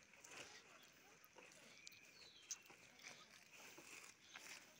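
Near silence: faint outdoor ambience with a few soft ticks and scuffs.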